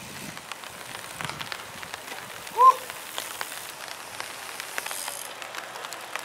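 Light rain falling steadily, a fine hiss full of small crackles. A little under halfway through, one short, loud chirp that rises and falls.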